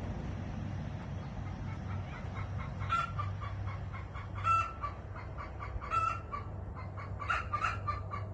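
Chickens clucking, with a short higher-pitched call about every second and a half, over a low steady hum.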